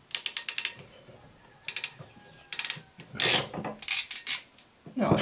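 Ratcheting PEX crimp tool clicking in quick runs as its handles are squeezed to close a clamp onto a brass PEX fitting, with a few louder clacks of the tool near the end.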